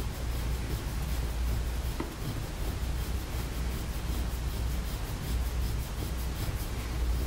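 Stainless-steel massage plate, a Graston-style scraping tool, scraping over the bare skin of the shin in quick, evenly repeated short strokes.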